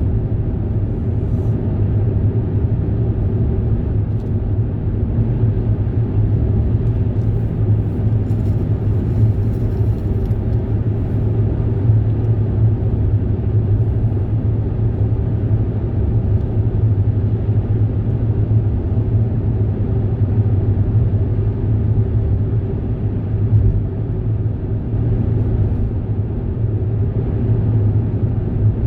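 Steady rumble of a moving vehicle, with a constant low hum that does not change.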